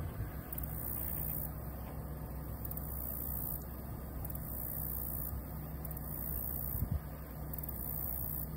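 Steady low motor rumble, like a vehicle engine idling, with a single short knock about seven seconds in.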